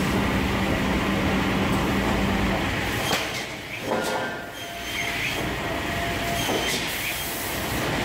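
Cursal TRV 2000 roller-feed optimizing cross-cut saw running, its feed rollers driving boards through the machine, with dense mechanical rattle. A steady hum stops about two and a half seconds in, and a few sharp clacks follow.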